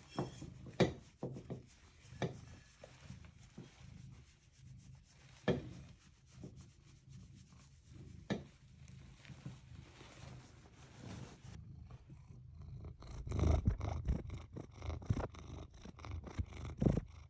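Domestic cat purring steadily while being petted, with scattered sharp brushing and rustling sounds. The purr grows louder and closer about three-quarters of the way through.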